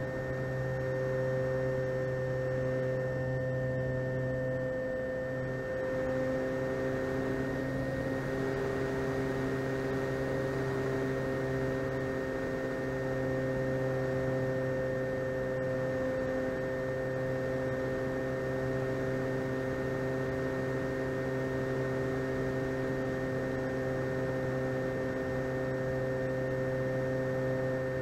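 Electric motor and propeller of an RC model Cessna 150 in flight, heard from on board as a steady hum made of several tones over a light hiss. A few of the tones shift slightly in pitch several seconds in, as the throttle changes.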